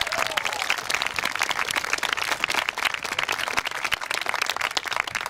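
Audience applauding, many hands clapping in a dense, steady patter, just after a dance tune ends.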